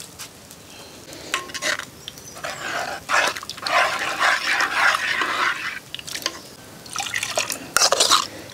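Wooden ladle stirring buttermilk into brinjal curry in a clay pot, the liquid sloshing and splashing in irregular spells, the longest in the middle.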